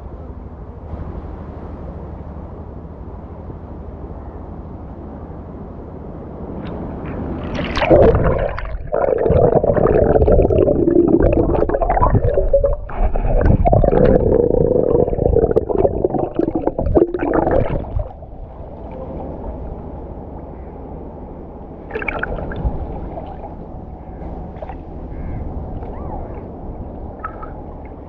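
Muffled underwater gurgling and bubbling heard through a submerged camera as a person swims under the water, loudest for about ten seconds in the middle, with a quieter steady wash of water before and after.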